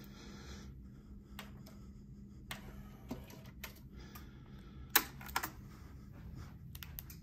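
Faint, scattered clicks and light taps from handling a Sony TC-K88B cassette deck and its controls, the loudest about five seconds in, over a low steady hum.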